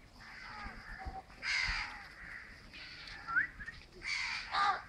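Crows cawing: harsh calls about a second and a half in and a pair of them near the end, with a short rising chirp a little after three seconds.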